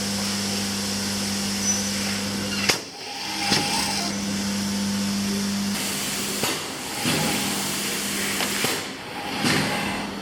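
Workshop machinery running: a steady electric-motor hum over a noisy mechanical bed, with a few sharp knocks. The hum drops off about halfway through.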